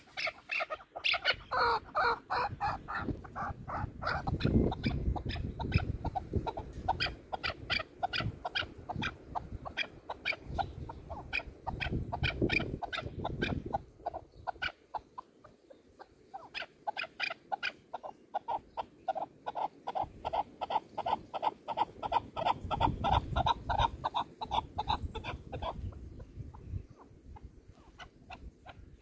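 Chukar partridges calling: long runs of short clucking notes, several a second, with low bumps and rustles underneath now and then. The calls die away near the end.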